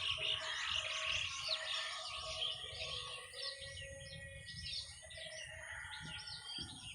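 Birds chirping and calling, many quick overlapping calls, growing fainter after about three seconds.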